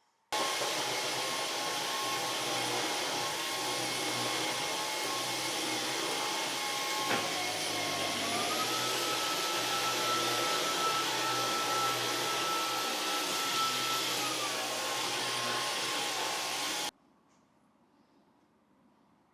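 Vacuum cleaner motor running with a steady whine and rush of air; its pitch rises about halfway through and drops back near the end, then it cuts off abruptly.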